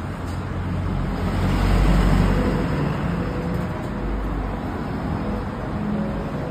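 Low rumble of road traffic around a streetcar stop, swelling to a peak about two seconds in and easing off again, with a faint steady hum underneath.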